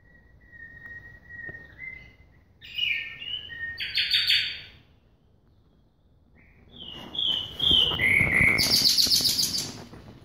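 White-rumped shama singing: a series of clear whistled notes, then, after a short pause, a louder phrase that breaks into a fast run of high notes near the end.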